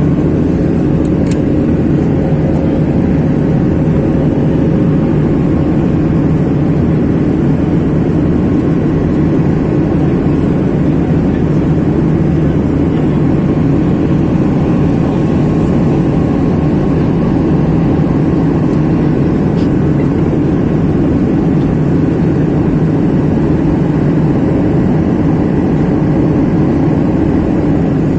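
Steady cabin noise inside a passenger airliner during the climb: the hiss and rush of the jet engines and the airflow around the fuselage, even and unbroken, with a few faint steady tones underneath.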